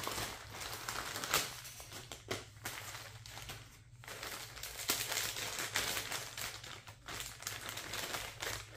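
Thin plastic packaging bags crinkling and rustling as they are handled, with a brief lull about four seconds in.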